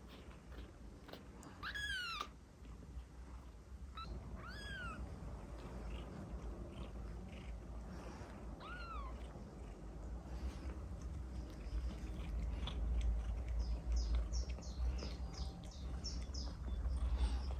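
Newborn kitten meowing: three high, arching mews a few seconds apart. Near the end comes a quick run of short, very high chirps.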